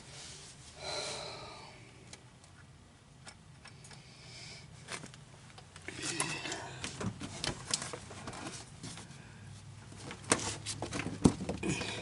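Plastic underbody trim panel being worked and pushed against its clips: scattered plastic clicks, taps and rustling, getting busier in the second half.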